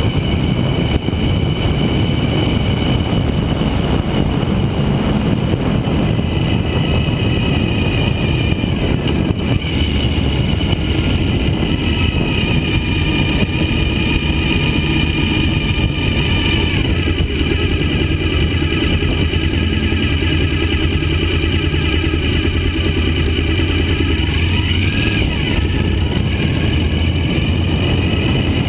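Suzuki V-Strom 1000 motorcycle's V-twin engine running under way, with steady rushing noise over it. The engine pitch rises and falls a few times as the bike changes speed.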